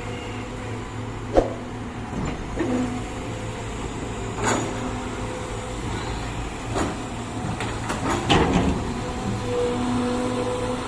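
Radio-controlled toy excavator working: a steady low hum, with its small motors whirring in short spells and a few sharp clicks and knocks, the loudest about a second and a half in.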